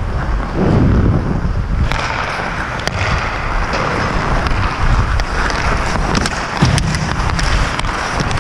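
Hockey skates carving and scraping on rink ice, with wind buffeting the microphone in a heavy low rumble. From about two seconds in the scraping turns brighter and hissier, with scattered sharp clicks.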